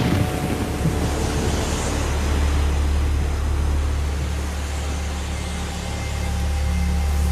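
Heavy rain hissing over a steady, deep continuous rumble, with a few faint held tones above it.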